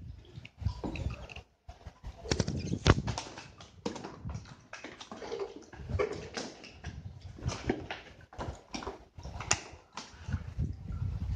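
Irregular knocks, taps and rustling of a small caught fish and fishing line being handled in a gloved hand close to the microphone, with one sharp knock about three seconds in.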